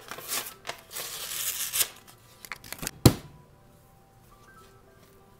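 Paper label being torn and peeled off a cardboard can of refrigerated crescent roll dough, then the can pops open with one sharp, loud pop about three seconds in.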